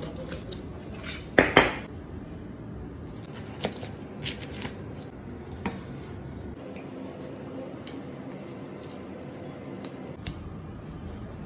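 Large kitchen knife chopping through whole bonito onto a plastic cutting board. There are two loud chops about a second and a half in, then scattered lighter knocks and clicks of the blade, over steady background noise.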